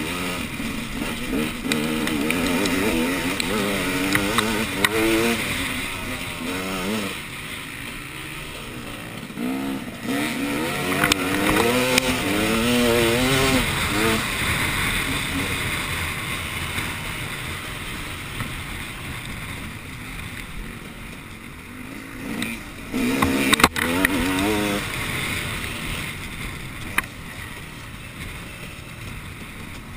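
Dirt bike engine revving up and down in repeated bursts under race riding, with quieter stretches between, and a sharp knock about three quarters of the way through.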